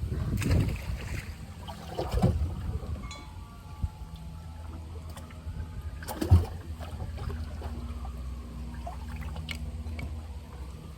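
Knocks and water sounds in a fishing boat over a steady low hum, with one sharp, loud knock about six seconds in.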